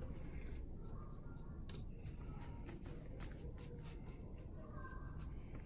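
A low room hum with scattered light taps and clicks throughout.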